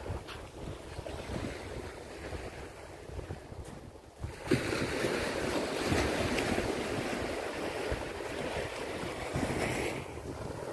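Small waves breaking and washing up a sandy shore, with wind buffeting the microphone. The surf grows louder about four and a half seconds in.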